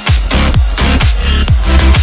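Electronic dance music with a steady beat of deep kick drums.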